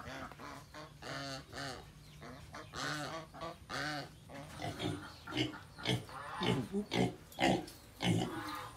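Domestic geese honking over and over, a series of arched, separate calls. In the second half come shorter, quicker calls from pigs.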